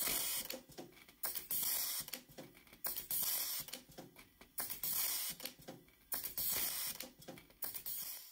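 Pneumatic automatic-feed rivet gun setting rivets one after another into a perforated metal panel. Each cycle is a sharp snap followed by about half a second of hissing air, repeating roughly every one to one and a half seconds.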